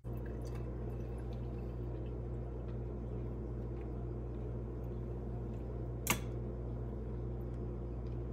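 A steady low mechanical hum, like a kitchen appliance or fan running, with one short sharp click about six seconds in.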